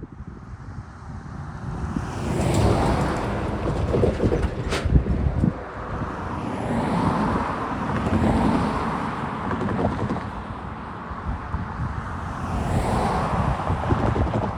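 Road vehicles passing one after another, each swelling and fading, with a sharp click near the loudest pass. Wind noise on the microphone.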